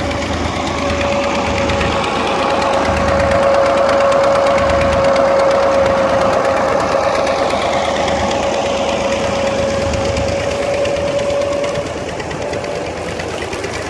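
Massey Ferguson 135 tractor engine running steadily under load, driving a sugarcane crusher through its PTO shaft. A steady whine sits over the engine note and weakens near the end.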